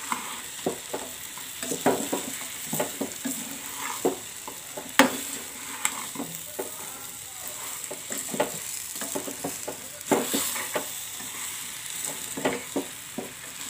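A spoon stirring and scraping spiced mango pieces with sugar and jaggery in a hot pan, with irregular knocks of the spoon against the pan over a steady sizzle.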